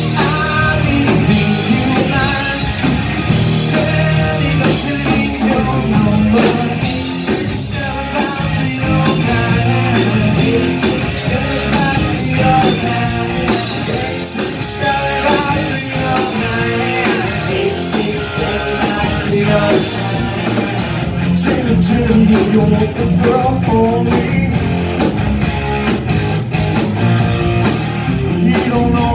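Live rock band playing loud: electric guitars, bass guitar and a drum kit, with a singer's vocals over them.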